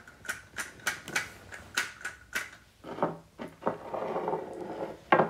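Small plastic toy figure knocked repeatedly on a wooden tabletop as it is made to dance, about three quick knocks a second. The knocks thin out after about three seconds and give way to a soft rustling.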